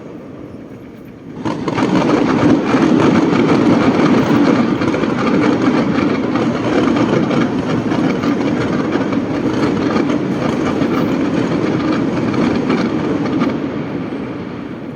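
Fireworks going off in a dense, continuous crackle that starts suddenly about a second in, keeps up for about twelve seconds, then fades.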